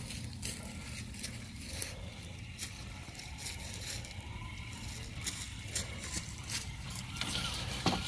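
Radio-controlled scale crawler truck driving over stones in a corrugated culvert. Scattered clicks and crunches from the tires, over a steady low hum, with a faint rising electric-motor whine as it comes out near the end.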